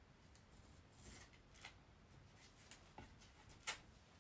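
Quiet room with faint rustles of a strip of shoji paper being handled, a few soft taps, and one sharper click about three and a half seconds in as it is set down on the floor.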